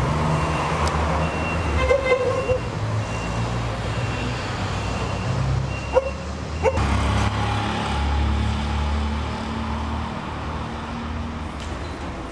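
Street traffic: vehicle engines running with a steady low rumble, and a short car horn toot about two seconds in. Two brief sharp sounds follow near six seconds in.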